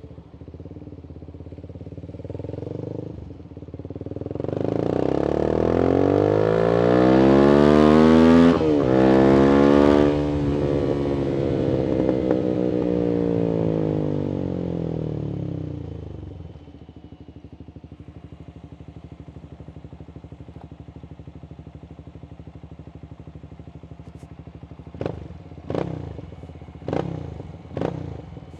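Voge 300AC motorcycle engine through a free-flowing full-system exhaust: idling, then revving up hard with a quick gear change, winding back down to idle, and giving four short, sharp blips near the end.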